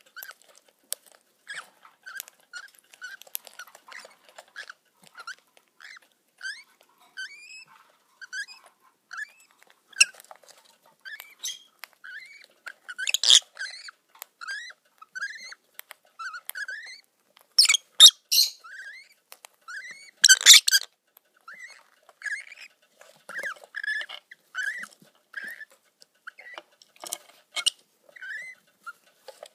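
Peach-faced lovebird chicks begging with a steady run of short rising chirps, about two a second, while the mother tends and feeds them, with a few louder, harsher calls around the middle.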